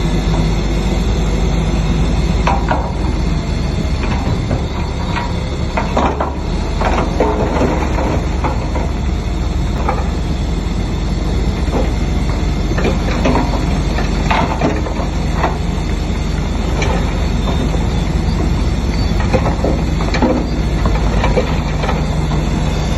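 Heavy diesel construction machinery running steadily, with irregular clanks and knocks of metal and rock throughout.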